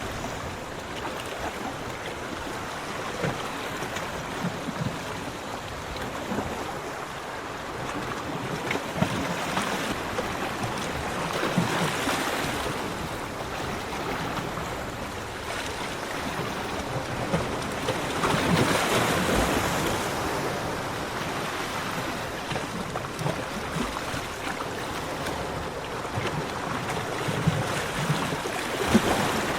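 Ocean waves washing onto a beach: a continuous surf hiss with two larger waves swelling and breaking, one about halfway through and another a few seconds later.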